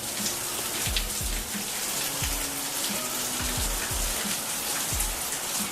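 Steady rain falling, an even hiss with scattered drop ticks. Background music with a steady kick-drum beat plays underneath.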